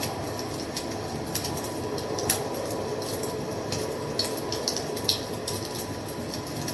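Wood fire crackling: a steady low rush of burning with scattered sharp pops and snaps, the loudest about two seconds in.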